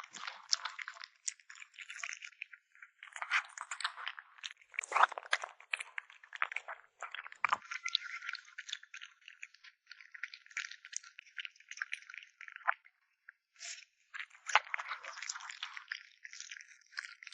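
A kitten chewing meat: rapid wet crunching and squishing, in uneven bursts with short pauses.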